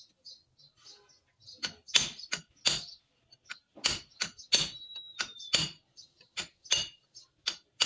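Sharp metal-on-metal strikes from a hand tool working at a Toyota Land Cruiser's front wheel hub: faint light ticking at first, then about a dozen irregular knocks from about a second and a half in, one leaving a brief high ring.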